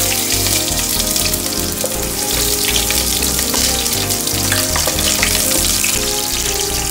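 Sliced onions sizzling steadily in hot oil in an aluminium pot as they are stirred with a wooden spoon, a loud, even frying hiss.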